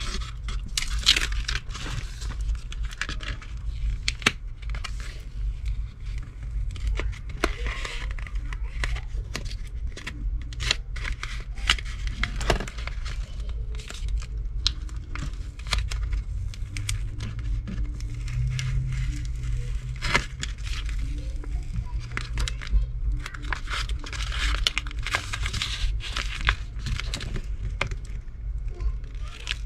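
Irregular crinkling and crackling of vinyl decal backing paper and transfer tape being handled and peeled off, with hands rubbing the sheet down onto a wooden sign, over a steady low hum.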